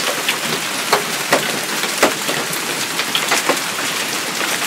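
Heavy hailstorm: a dense, steady clatter of hailstones, with frequent sharp cracks of single stones striking.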